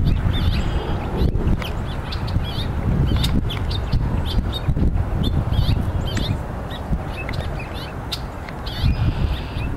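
Small songbirds chirping in short, scattered notes, many in a row, over a steady low rumble.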